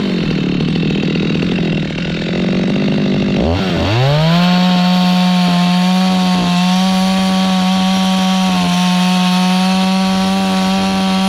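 Two-stroke chainsaw cutting into a fresh log, its engine pitch held down and wavering under load. About three and a half seconds in the pitch drops briefly, then climbs to a steady higher whine at full throttle.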